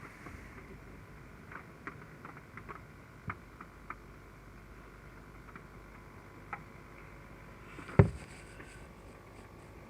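Heavy rain: a steady low hiss with scattered drops tapping close by, and one loud knock about eight seconds in.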